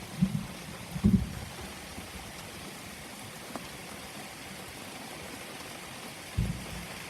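Steady rain, broken by short low booms: two in the first second or so and another near the end. These are the unexplained booms heard during the storm, which the recordist thinks could be thunder.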